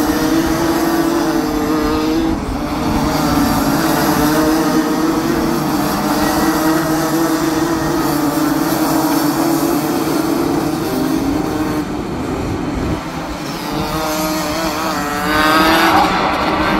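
Several Rotax 125cc two-stroke kart engines running hard as karts pass through a corner, the pitch wavering as drivers lift and get back on the throttle. About fifteen seconds in, one kart accelerates with a loud rising whine.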